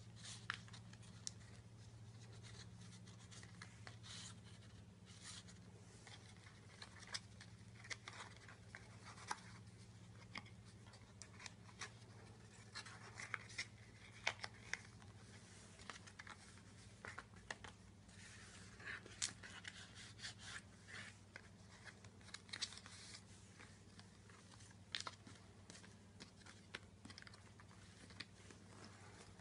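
Cardstock pages and fold-out flaps of a handmade scrapbook album being turned and handled: irregular soft paper rustles, scrapes and light taps, over a low steady hum.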